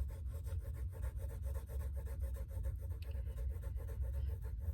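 Broad wooden pencil shading on sketchbook paper: quick, even back-and-forth strokes scratching as an area of the drawing is filled in.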